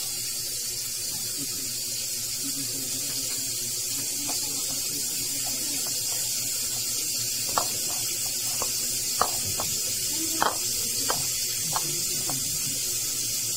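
A scatter of about eight small sharp clicks over the second half, from a hand handling fried fish on a plate. Under them run a steady hiss and faint voices in the background.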